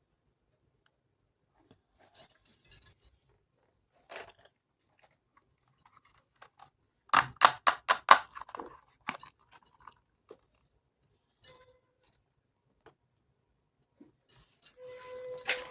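Small hard pieces of a toy kitchen set being handled, clicking and clinking now and then, with a quick run of sharp clicks about seven seconds in. Near the end a steady hum starts up under more clicks.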